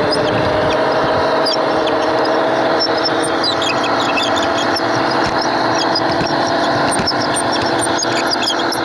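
A garden-scale model train running: a steady whine from its electric motor and gearing, over the rolling noise of its wheels on the rails.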